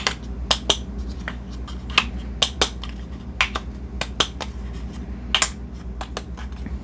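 Sharp, irregular plastic clicks from a ground-ginger spice dispenser's measuring dial being turned, each click measuring out a quarter teaspoon.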